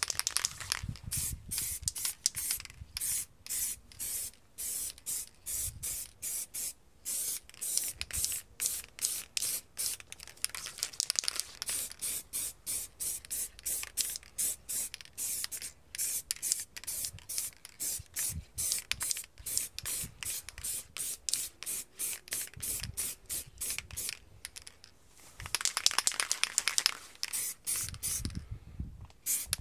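Aerosol spray-paint can hissing in many short, quick bursts, about three a second, while laying a colour coat on an alloy wheel. Near the end it gives a longer, steadier spray.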